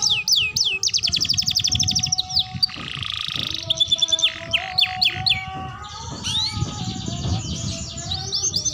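Young domestic canary singing its immature learning song: fast trills of repeated rising notes, broken about three seconds in by a harsh buzzy phrase, then slower single notes and more fast trills.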